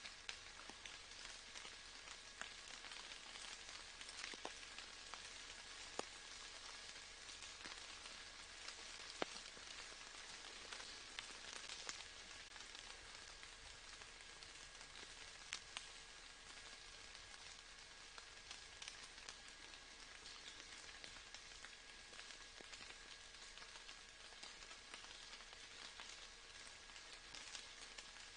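Faint, steady rain: an even hiss of rainfall with scattered, sharper single drops ticking through it.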